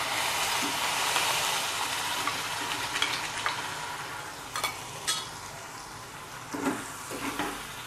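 Wet ground masala paste sizzling in hot tempering oil in a non-stick kadhai. The sizzle starts suddenly as the paste goes in and slowly dies down, with a few light clicks of a spatula.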